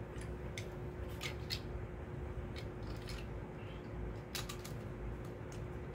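Light plastic clicks and rattles, scattered irregularly, as a Beyblade top is handled and fitted onto its plastic launcher, set up for a left-spin top.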